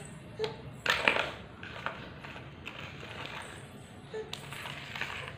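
A toddler crawling on a tiled floor: scattered slaps and scuffs of small hands and knees on the tiles, the loudest a rustling burst about a second in.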